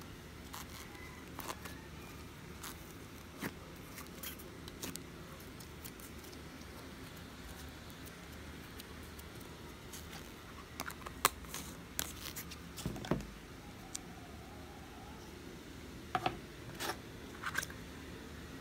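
Thick slime being stretched and squeezed by hand in plastic containers: scattered small sticky clicks and pops. The clicks are busiest a little past the middle and again near the end.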